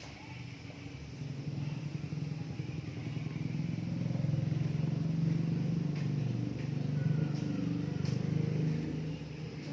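A motor vehicle engine running past, its low hum growing louder over the first few seconds and easing off near the end.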